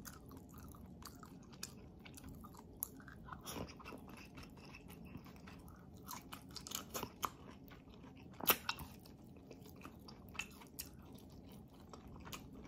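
Close-miked chewing of tomato-braised beef rib meat and green beans, with scattered faint wet clicks from the mouth; the loudest click comes about eight and a half seconds in.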